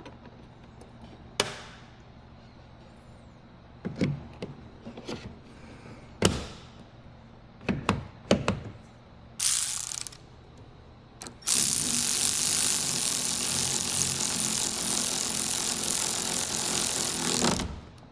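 Tools working on a car door: a string of separate clicks and knocks, then a dense ratcheting noise lasting about six seconds that cuts off suddenly near the end.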